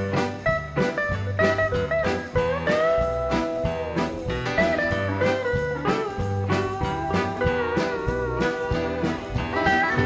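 Country band playing an instrumental break with no singing: a steel guitar takes the lead with sliding, bending notes over a steady strummed rhythm guitar.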